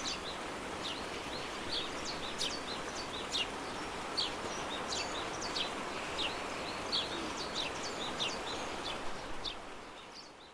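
Small birds chirping over a steady background hiss. The calls are short, sharp and falling, several a second, and everything fades out near the end.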